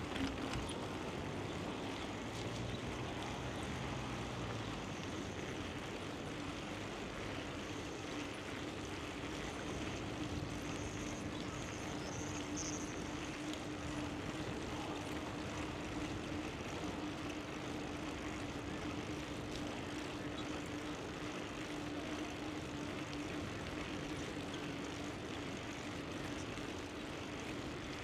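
Bicycle riding along: a steady hum over an even rushing noise, slightly stronger in the middle.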